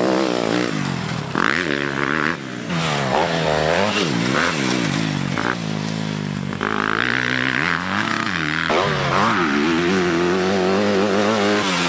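Motocross bike engines revving hard and backing off again and again, the pitch rising and falling with each burst of throttle as the riders accelerate and shift.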